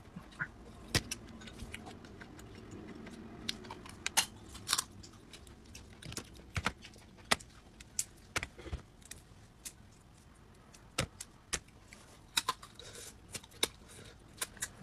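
Cooked crustacean shells being cracked and peeled apart by hand: irregular sharp crackling clicks, roughly one or two a second.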